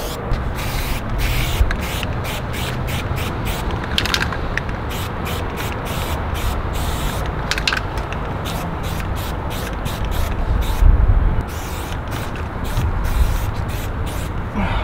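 Aerosol spray-paint can hissing in many short bursts, switching on and off, with a low rumble underneath.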